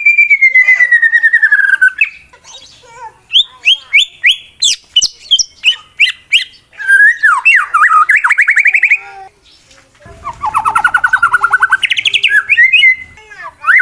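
Male white-rumped shama (murai batu) singing its aggressive challenge song: a long, fast trill falling in pitch, then sharp whistled notes and clicks, then two runs of rapid rising trilled notes, the second about ten seconds in.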